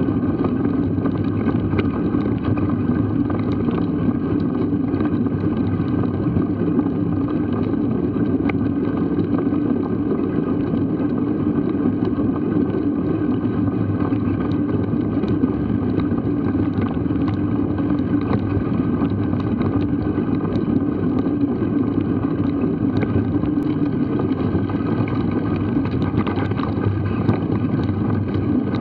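Steady riding rumble of a mountain bike rolling over a grassy dirt track, heard through an action camera: wind on the microphone and tyre noise, with small scattered knocks from bumps in the track.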